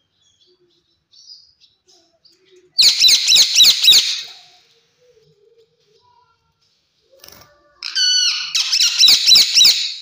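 Rose-ringed parakeet giving two bursts of rapid, high-pitched repeated calls, the first about three seconds in and the second starting near the end with a held note.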